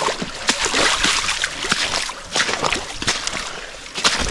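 A hiker's footsteps squelching and splashing through thick mud and shallow water, in an irregular run of steps.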